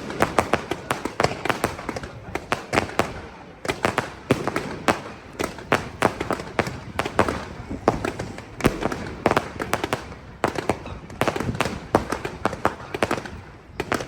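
Aerial fireworks going off: a dense run of sharp bangs and crackles, several a second, broken by a few brief lulls.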